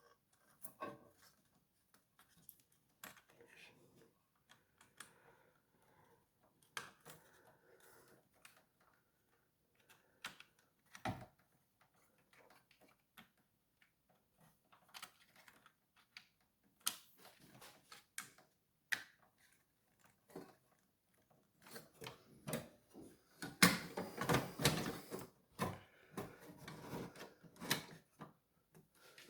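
Scattered light clicks and knocks of hands working plastic and metal computer parts while fitting an SSD and its cables into the drive bay, with a louder stretch of clattering near the end.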